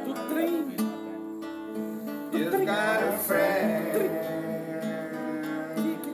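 Acoustic guitar strummed live, with a voice singing wordless notes in places.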